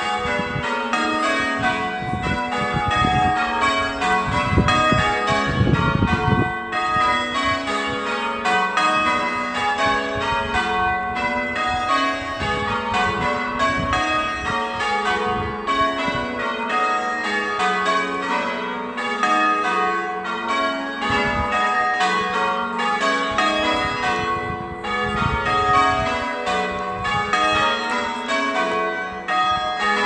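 Church tower bells being change-rung: a continuous, even run of strokes, one bell after another, each note ringing on into the next.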